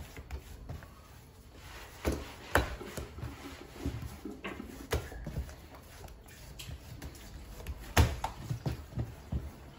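Warm coxinha dough being kneaded and beaten by hand on a countertop: irregular soft thumps and slaps as it is pressed out and folded over, the loudest about eight seconds in.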